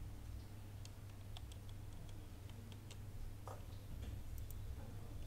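Computer keyboard keys tapped at an irregular pace, single sharp clicks while an email address is typed, over a steady low hum.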